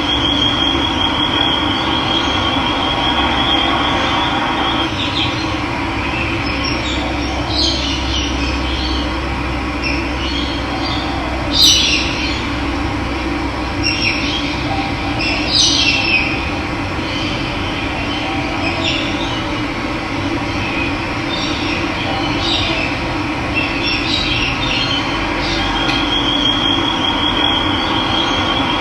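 Running water with wild birds calling over it: scattered short chirps, loudest about twelve seconds in and again around fifteen to sixteen seconds, and a steady high trill near the start and again near the end.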